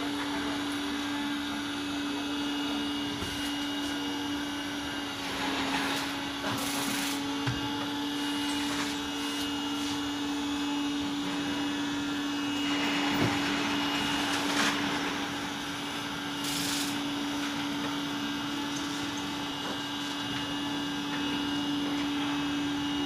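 Glass window-cleaning robot's suction fan running with a steady, even hum that holds it to the pane as it travels across the glass. Now and then there is a brief louder hiss.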